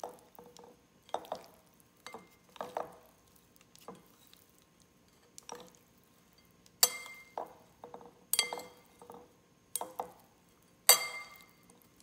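A metal spoon and chopsticks knock against a ribbed glass mixing bowl while raw herring is tossed with grated coconut. The clinks are sharp and irregular, each ringing briefly, and the loudest come about seven and eleven seconds in.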